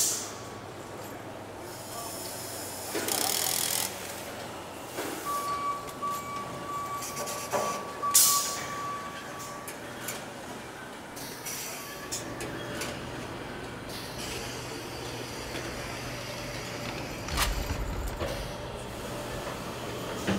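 Car assembly line at work: short bursts of compressed-air hiss, a steady single-pitch tone lasting a few seconds, and scattered clicks and clanks over a low machine hum.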